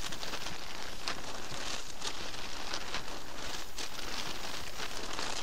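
Dry reeds and grass rustling and crackling close by, as someone moves through them: an irregular stream of small crackles and swishes.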